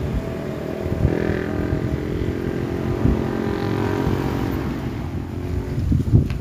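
A motorcycle engine running steadily, its pitch drifting slightly. Near the end, wind buffets the microphone.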